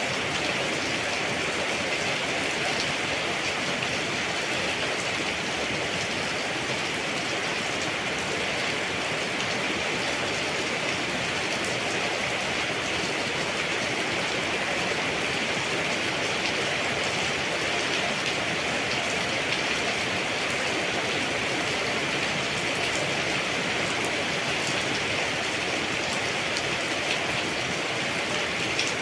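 Steady rain falling, an even hiss with fine patter of drops that holds unchanged throughout.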